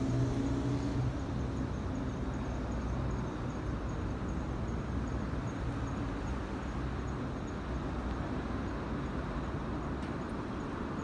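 Steady low rumble of a vehicle engine idling, over a hum of background noise, with a faint high ticking about twice a second.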